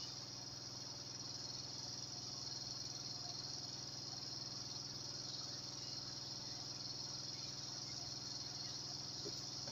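Quiet steady background: a continuous high-pitched whine with a low hum underneath.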